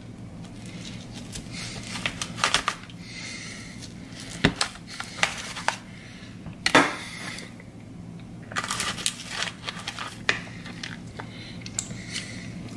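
Thin aluminium foil pie pan crinkling, with a knife scraping and clicking against it as a slice of cheesecake is cut and lifted out: irregular crackles and clicks.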